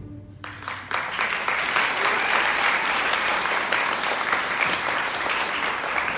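Audience applauding, many hands clapping: it breaks out about half a second in as the last held chord of the music dies away, builds for a moment and then holds steady.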